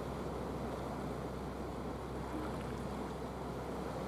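Steady seaside ambience: an even rush of wind and lapping water with a low, steady hum underneath.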